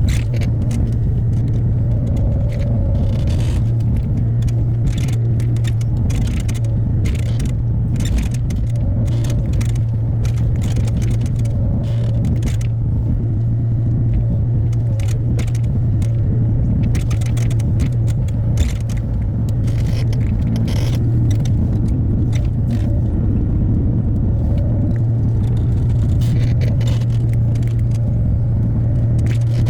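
Hyundai HX60A mini excavator's diesel engine running at a steady pitch under work, with frequent clinks, knocks and scrapes from the digging.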